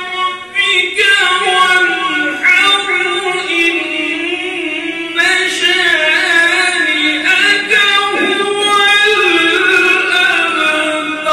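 A man reciting the Quran in the melodic tajweed style into a handheld microphone: several long held phrases whose pitch bends and turns in ornamented runs, with brief breaths between them.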